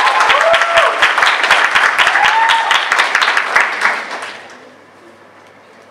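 Small audience applauding, with a few whoops. The clapping dies away about four seconds in.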